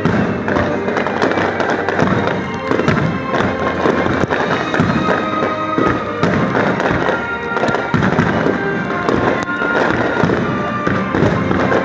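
Fireworks display shells bursting in a rapid, unbroken string of bangs and crackles, over music played along with the show.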